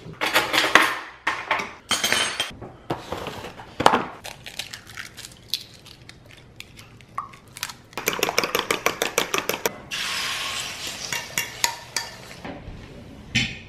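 Kitchen prep of eggs: a ceramic bowl and a fork clink and knock against each other, then a fork beats quickly against the bowl in a run of fast, even strokes about two-thirds of the way in. The egg then goes into a hot non-stick pan on a gas hob and hisses steadily for a couple of seconds.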